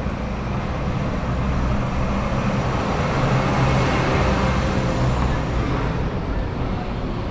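A motor vehicle passing close by in street traffic, its engine and tyre noise swelling to a peak about halfway through and then fading.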